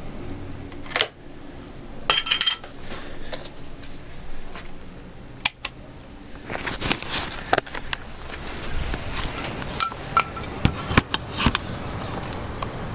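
A string of sharp metallic clicks and knocks, a few of them briefly ringing, from handling a Hatsan 80 break-barrel air rifle. There is a close group of clicks about two seconds in and another near the end.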